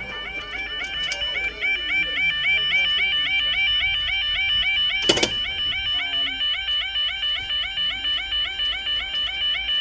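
Level crossing audible warning alarm: a loud, continuous warbling tone that repeats rapidly, warning that the barriers are coming down or down for an approaching train. A single sharp knock comes about five seconds in.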